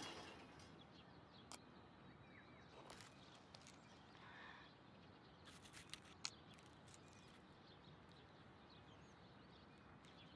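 Near silence: faint outdoor ambience with a few faint bird chirps and a handful of small clicks, most of them between about five and a half and six seconds in.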